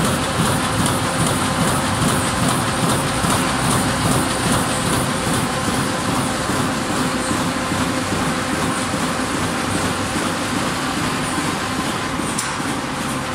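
Carton box making machine with a row of printing units running at working speed: a steady, loud mechanical clatter with a fast, even rhythm over a constant hum.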